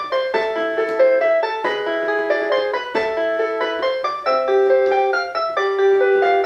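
A Simba toy electronic keyboard plays a lively melody of quick piano-like notes, with a few held notes near the end.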